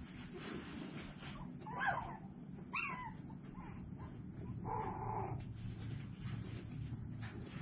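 Tiny toy poodle puppy whimpering: short high yelps about two and three seconds in, and a longer, steadier whine around five seconds, over a low steady hum.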